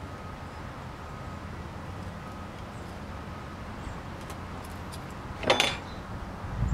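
A brief scraping rustle, under half a second long, a little past the middle, as the metal wiper blade frame and its rubber refill are handled and worked together, over a steady low background hum.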